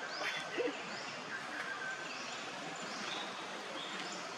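Outdoor forest ambience: a steady hiss, with a short high call repeating about once a second and a brief lower sound about half a second in.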